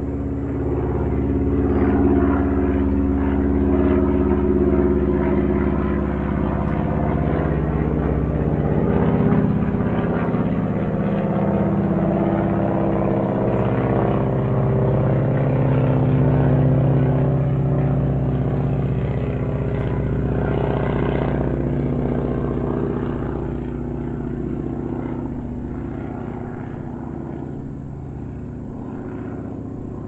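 Airplane flying over: a steady engine drone made of several pitched tones, which slide lower around the middle as it passes. The sound then fades slowly over the last several seconds as the plane moves away.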